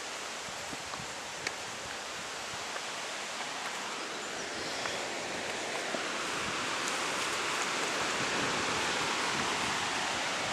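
Steady outdoor rustling hiss, growing louder about six seconds in, with a few faint clicks.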